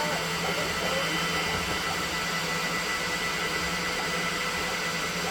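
Elegoo Neptune 4 Pro 3D printer running, its cooling fans making a steady whirring hum with a few constant faint whines.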